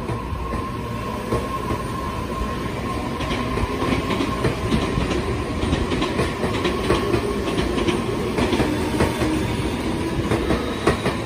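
Tobu Urban Park Line electric commuter train pulling out of the station with a steady rumble. Wheels start clacking over rail joints a few seconds in, and the clacks come more often as it gathers speed.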